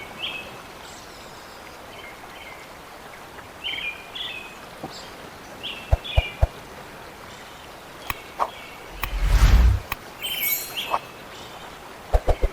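Small birds chirping in short repeated calls over a steady outdoor background. There are a few sharp knocks about six seconds in and again near the end, and a brief loud rush of low noise about nine seconds in.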